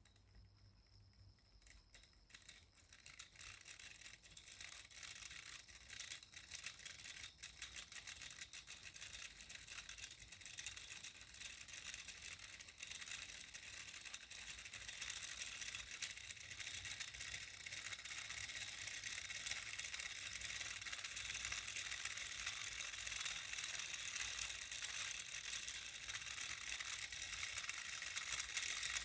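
Pulse motor driven by a reed switch starting up and spinning, a fast dense clicking rattle that builds over the first few seconds and then runs steadily, with a thin high whine above it.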